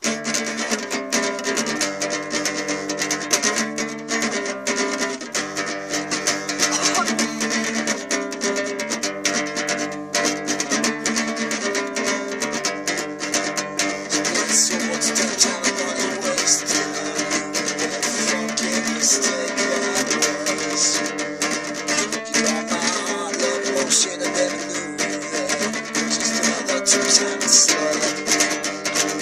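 Acoustic guitar being strummed, a steady run of chords in a repeating progression that begins suddenly.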